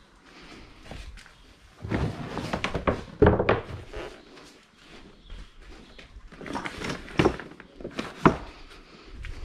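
Handling noise as the inflatable boat's rigid floor panels are picked up and set into a folding wagon: irregular clunks, knocks and scraping, with the sharpest knocks about three seconds in and again after seven seconds.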